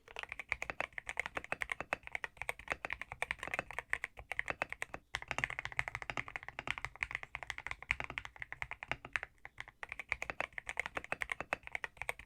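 Fast, continuous typing on a mechanical keyboard: a dense run of key clacks, broken off sharply about five seconds in and again near ten seconds, where it cuts straight to more typing.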